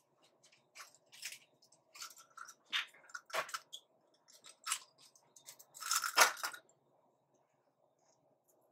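Short, irregular crinkling and clicking noises of small objects being handled by hand, loudest a little after six seconds.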